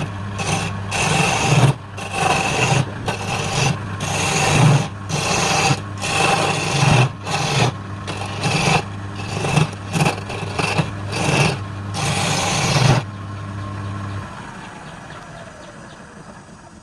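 Wood lathe running with a steady motor hum while a turning tool cuts the spinning wood in repeated, irregular scraping passes. The cutting stops about thirteen seconds in, the motor hum cuts out a second later, and a fainter falling whine follows as the lathe winds down.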